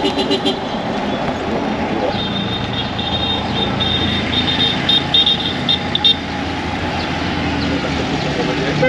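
Busy city street traffic with engines running and short car-horn toots. A rapid string of high-pitched beeps runs from about two seconds in until about six seconds in.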